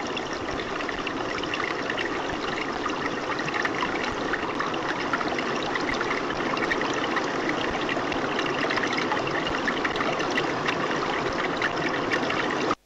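Sound of the Vatnajökull glacier melting, picked up by an underwater microphone in the Jökulsárlón glacial lagoon: a steady trickling wash of water full of dense crackles and pops from the ice. It cuts off abruptly near the end.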